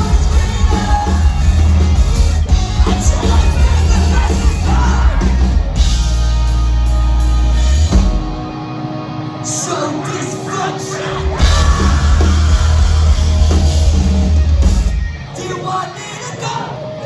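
Live rock band playing loud, with sung vocals and some yelling. The heavy bass and drums drop out for a few seconds about halfway through, leaving held guitar and vocal notes, then the full band comes back in.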